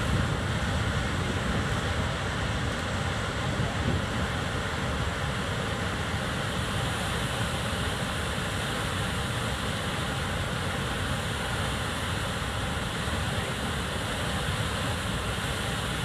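Tahquamenon Falls pouring over its ledge in heavy flow: a steady, unbroken rush of falling water.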